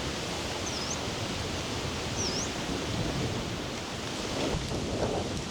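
Steady rushing noise of stormy weather outdoors, growing rougher and louder near the end. Over it comes a short, high chirp that dips and then rises, twice, about a second and a half apart.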